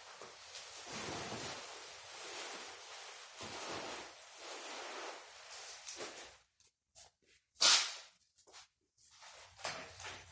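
Cardboard packaging of a large tool cabinet being handled and opened: scraping and rustling for the first several seconds, then scattered clicks and one loud, sharp snap about three-quarters of the way through.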